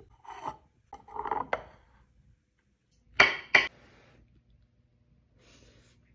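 Knife and fork scraping on a plate as food is cut, with two sharp clinks of metal on the plate a little over three seconds in.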